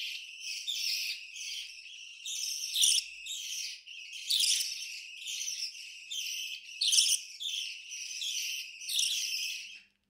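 Budgie chicks chirping: a continuous run of high chirps about two a second, a few of them louder than the rest.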